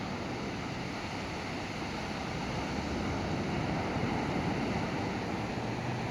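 Small waves washing onto a sandy beach, a steady rush that swells a little midway.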